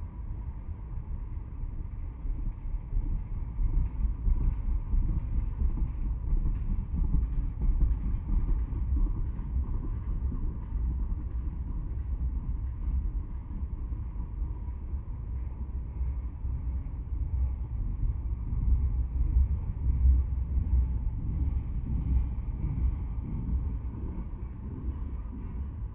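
Tank cars of a long freight train rolling past, a continuous low rumble of steel wheels on rail that swells and eases.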